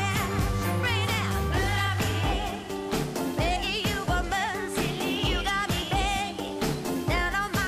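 Pop song with a singer over a steady beat, playing as background music.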